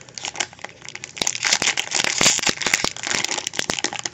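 Foil wrapper of a trading-card pack crinkling as hands handle it, quiet at first and then a denser, louder crackle from about a second in.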